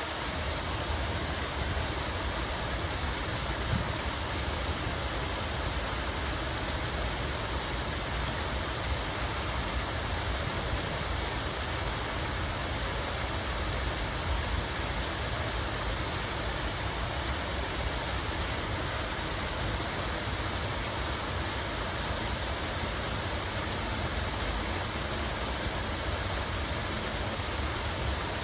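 Steady running water from a park water feature, an even splashing rush that does not change, with a low rumble underneath.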